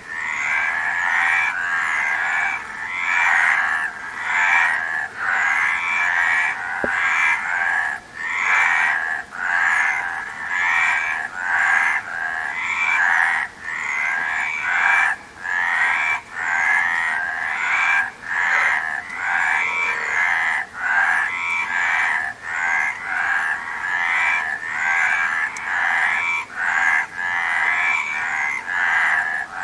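A dense chorus of many frogs croaking together, a continuous wall of overlapping calls that swells and briefly dips about once a second.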